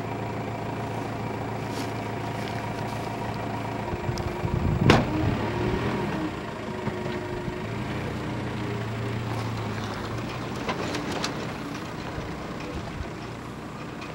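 An engine running steadily, with a sharp knock and a brief louder rumble about five seconds in.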